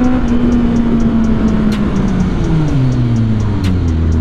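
Kawasaki Z800's inline-four engine and exhaust heard from the saddle while riding. It holds a steady note, then falls in pitch from about two seconds in as the bike rolls off the throttle and slows, with wind noise rushing past throughout.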